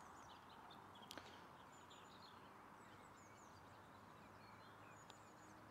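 Near silence: faint outdoor quiet with distant birds chirping, and one faint tick about a second in.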